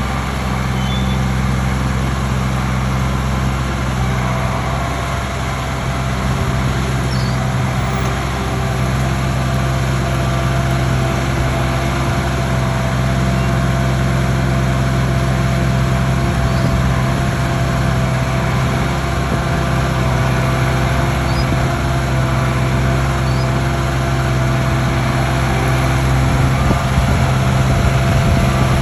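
Engine of heavy stump-removal equipment running steadily at a constant speed, getting a little louder near the end.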